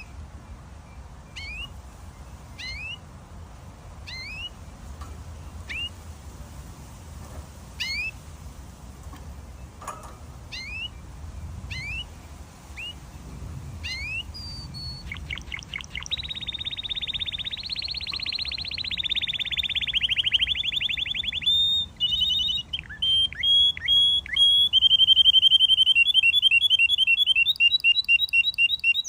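Domestic canary singing: separate short rising chirps about once a second, then from about halfway a long fast trill followed by quick repeated rolling phrases that grow louder.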